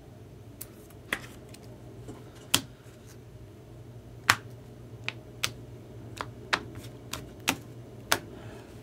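About a dozen sharp, irregular clicks and taps from trading cards being handled, over a steady low hum.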